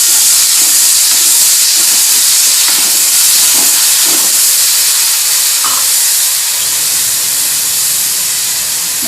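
Chopped onion and ginger sizzling in hot oil with mustard seeds and chana dal, a tempering being fried. A steady loud hiss that eases off a little toward the end.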